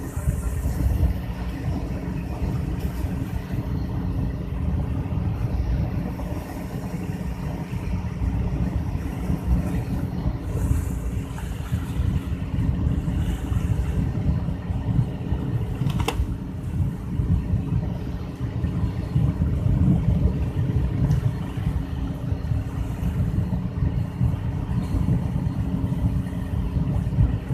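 Fishing boat's inboard engine running steadily under way, a constant low drone. A single sharp click about sixteen seconds in.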